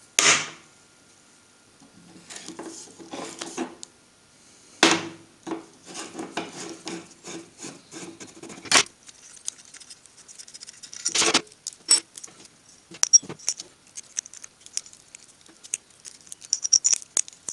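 Steel spanners and a drill mandrel clinking and rattling against a steel bench top, with scraping and rubbing, as a worn-down strip disc is unscrewed from the mandrel. There are several sharp metal knocks, the loudest just after the start and about 5, 9 and 11 seconds in.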